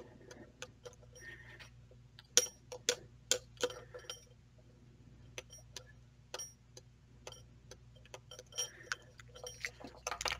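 Shimano 105 ST-5800 shifter's bare ratchet mechanism clicking as its levers are worked by hand, the pawls catching and releasing the gear ratchet teeth. Sharp small metallic clicks at irregular spacing, loudest about two to four seconds in, with a quick cluster near the end.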